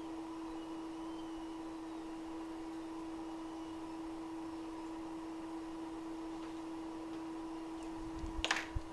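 Steady hum on one held tone over a faint hiss from the microsoldering bench equipment, with a brief short rustle near the end.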